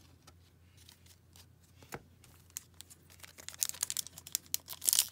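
Foil wrapper of a 2017-18 Upper Deck Series 2 hockey card pack being torn open, crinkling and tearing from about three seconds in; before that only a few faint taps.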